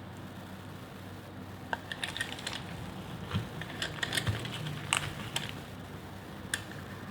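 A knife cutting through a bar of soap into cubes, making a run of crisp, crunchy clicks and crackles in the middle of the stretch and one more click near the end, over a steady low hum.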